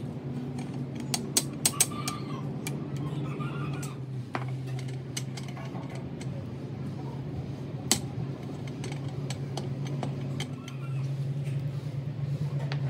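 A steady low machine hum, with scattered sharp metallic clicks and taps, a cluster of them about one and a half to two seconds in and a single one near eight seconds.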